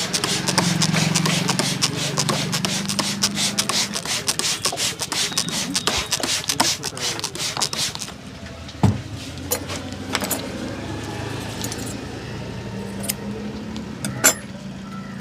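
A barber's percussive hand massage: rapid slapping and tapping on the head and body, many strokes a second, which stops about eight seconds in. After that come lighter rubbing and a few scattered taps, with a single heavier thump.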